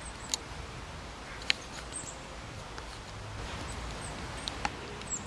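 Outdoor winter ambience: a steady background hiss and low rumble with faint, very high, short chirps from small birds scattered through it, and a few sharp clicks, the loudest about one and a half seconds in.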